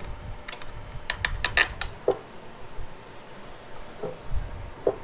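Light metallic clinks and taps of steel bolts being handled and set into the bolt holes of a motorcycle clutch cover, with a quick run of about six clinks between one and two seconds in and a few softer knocks after.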